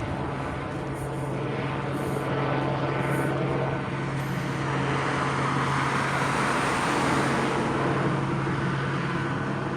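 Helicopter overhead: a steady engine and rotor drone that grows somewhat louder and fuller around the middle.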